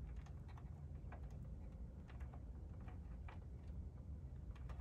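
Irregular light clicks and ticks, a few a second, over a steady low rumble.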